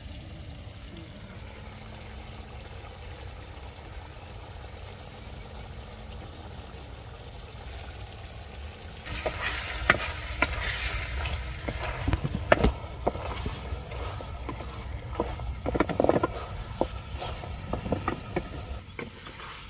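A wooden spatula stirring and scraping chicken pieces, onions and masala powder in a metal pan as they fry, with sizzling and irregular scrapes and knocks against the pan. It begins about halfway through, after a steady low background.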